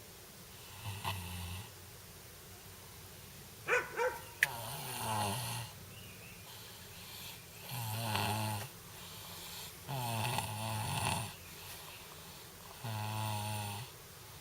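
A sleeping young child snoring, with loud rasping breaths repeating about every two to three seconds. A few short, sharp higher-pitched sounds come just before four seconds in.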